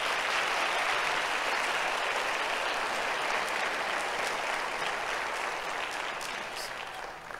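Church congregation applauding, loudest at the start and slowly tapering off near the end.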